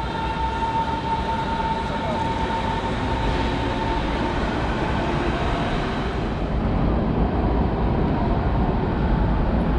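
A train running through the station: a steady rumble with a thin high whine over the first few seconds that then fades out.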